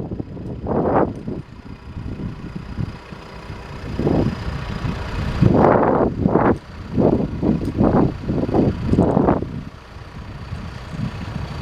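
Diesel engine of a John Deere 310SJ backhoe running, its sound swelling and falling back in a series of surges.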